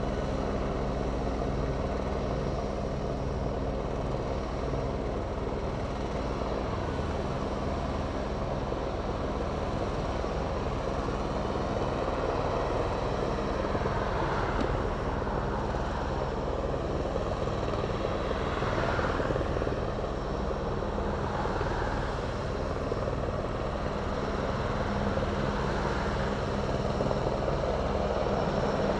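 Low-flying light helicopter: a steady drone of rotor blades and turbine engine, with a few brief swells in the middle and growing slightly louder toward the end.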